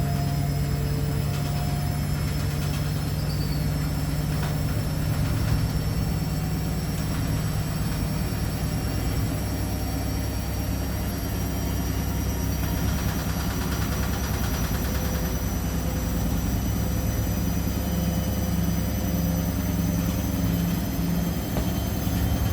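Washing machine running with a loud, steady low rumble and hum as the machine shakes and jumps. The hum pulses for a few seconds near the end.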